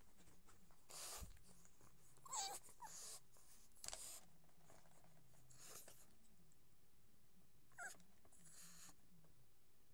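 Pug dog giving a few short, faint high whines over quiet room tone: a pair about two and a half seconds in, falling in pitch, and another near the end.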